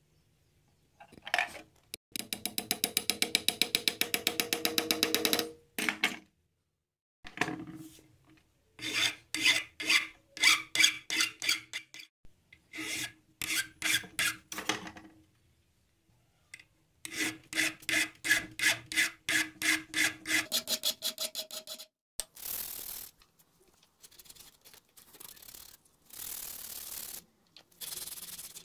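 Protruding metal tube rivets on a wooden knife handle being cut down flush by hand, in runs of quick back-and-forth strokes with a ringing metallic note. Near the end the wooden handle is sanded by hand, a rough scratchy hiss in strokes.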